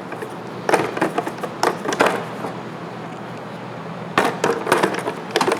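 Metal hand tools clicking and clattering as they are picked up and set down in a toolbox drawer, in two bursts of sharp knocks with a pause between.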